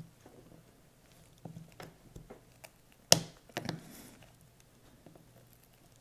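Scattered small clicks and scrapes of a plastic pry tool working under a lithium-ion battery held down by strong double-sided adhesive tape in a GPS unit, with one sharp click about three seconds in and a couple more just after.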